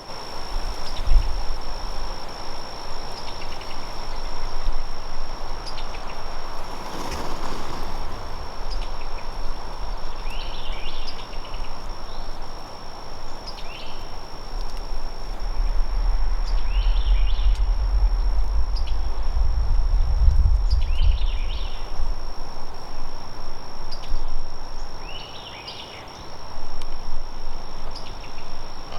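Evening field ambience: a steady high-pitched insect drone, a songbird repeating a short chirping phrase every couple of seconds, and low wind rumble on the microphone that swells in the middle. About seven seconds in, a brief rushing sound passes.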